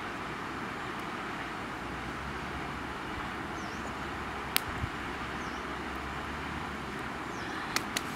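Steady outdoor wind noise, with a few sharp wooden clacks as sticks are laid across stones over a fire pit, one about halfway through and two close together near the end.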